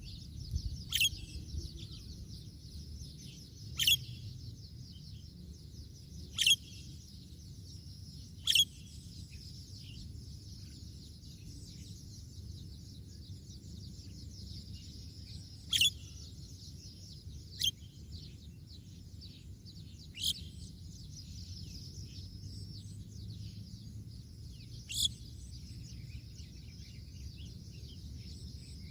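Birds calling in the open: about eight short, sharp, loud calls at irregular intervals, over a continuous high twittering chatter and a steady thin high tone.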